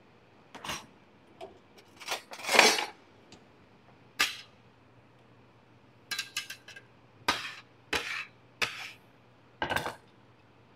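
Chef's knife and metal bench scraper knocking and scraping on a wooden end-grain cutting board while gathering diced onion: a string of separate knocks and clinks, with a longer, louder one about two and a half seconds in.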